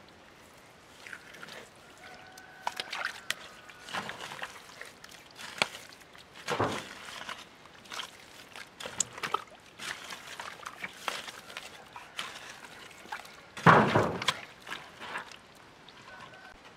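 A hoe chopping and dragging through wet mud in irregular strokes, with squelching and sloshing of muddy water; the loudest stroke comes near the end.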